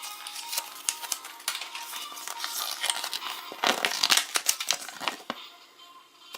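Crinkly wrapper from a Kinder Surprise egg being crumpled and torn open in a flurry of crackles, loudest around the middle, over faint background music.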